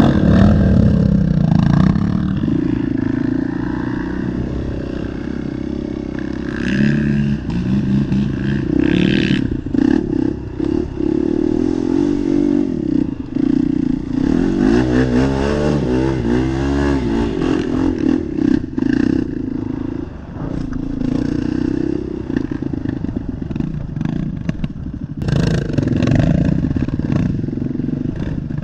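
Off-road ATV engine running under load through mud, its pitch rising and falling, with a stretch of quick revving about halfway through. Frequent knocks and clatter sound over it.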